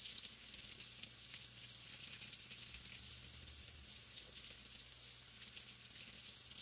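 Kitchen tap running a steady stream of cold water into a porcelain sink, splashing over sweet potatoes as they are scrubbed clean with a nail brush.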